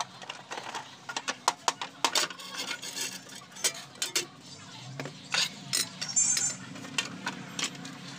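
Irregular clicks and knocks of hard plastic clock parts being handled and set down while a quartz wall clock is taken apart to free its movement.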